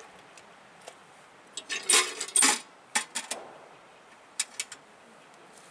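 A small wooden box with a metal latch, mounted on a tree trunk, being shut and fastened: a clatter of clicks and rattles about two seconds in, then several sharper single clicks over the next two seconds.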